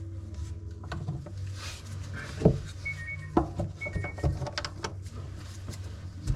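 Scattered sharp knocks and clicks of plumbing parts being handled and fitted under a bathroom sink, the two loudest a few seconds in, over a steady low hum.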